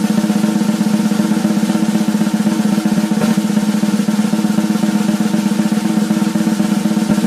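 Drum roll: rapid, even strokes blurring into one continuous sound at a steady level, with the drum's ringing tone held under it throughout.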